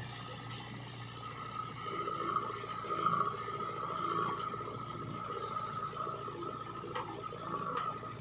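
Steady high-pitched whine of a small motor, with uneven scraping noises and a couple of short clicks near the end.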